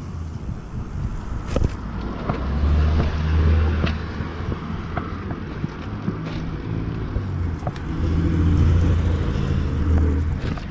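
Cars passing close from behind on the road. Engine hum and tyre noise swell and fade twice, one car peaking about three seconds in and another near the end.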